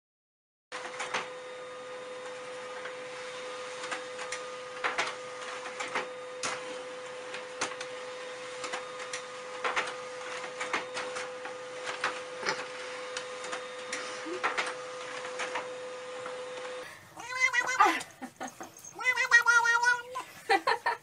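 A printer running: a steady hum with scattered clicks. About seventeen seconds in, the hum cuts off and a tabby cat yowls loudly in several wavering calls.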